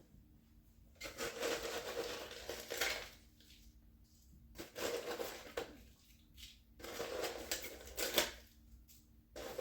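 Crispy French fried onions crunching and rustling as handfuls are scattered over the casserole, in four bursts with short pauses between.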